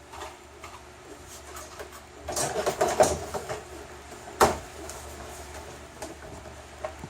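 Hands handling and fitting small parts: a patch of rustling and scraping a little over two seconds in, then one sharp click about four and a half seconds in, with a few light ticks.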